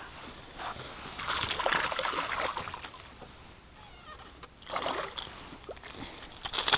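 Splashing at the water's surface as a small smallmouth bass is played and swung into a canoe. There are bursts of splashing and handling about a second in and again near five seconds, and the loudest burst comes just before the end.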